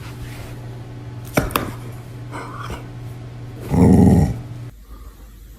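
A dog lets out one short, loud growly grumble about four seconds in, a protest at being left unpetted.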